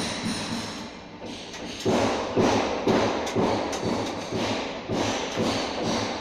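Irregular thumps and knocks of hands and tools at work, louder and more frequent from about two seconds in.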